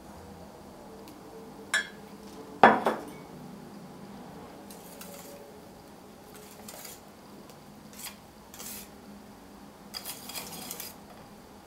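Metal kitchen utensils knocking against a stainless steel mixing bowl. There is a sharp click just before two seconds in and one loud ringing clank just after. Short bouts of scraping and clinking follow, ending with a wire whisk stirring in the bowl near the end.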